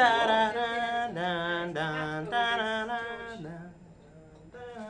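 Music with slow, chant-like singing: long held notes that waver, over a lower held note. It breaks off about three and a half seconds in and comes back just before the end.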